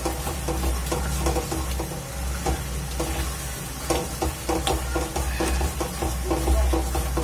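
A silicone spatula stirs and scrapes a thick pumpkin burfi mixture around a non-stick kadhai on a gas flame, in quick repeated strokes several times a second. A faint sizzle comes from the mixture as it cooks down to dry off its water.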